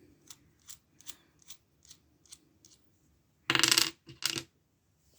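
Small metal tools clinking as they are handled: light sharp ticks, two or three a second, then a louder metallic clatter about three and a half seconds in and a shorter one just after, as tools are set down or dropped.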